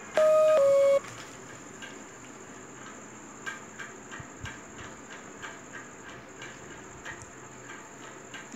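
A brief two-note electronic tone, the second note lower, cutting off sharply about a second in. After it come faint rustling and soft clicks of cotton fabric and plastic packaging being handled.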